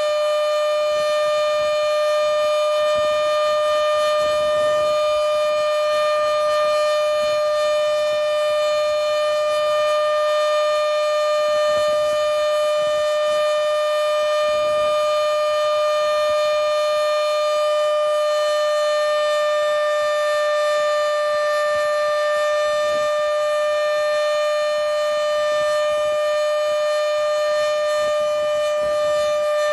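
Modified Federal Signal Model 7B outdoor warning siren sounding its steady full alert: one loud, unbroken tone near 600 Hz with a stack of overtones above it.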